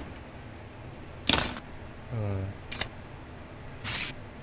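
Home-recorded foley samples for a beat, played back one after another as short separate clips: a jangle of keys about a second in, a brief low hum, a click, then a cardboard sample near the end.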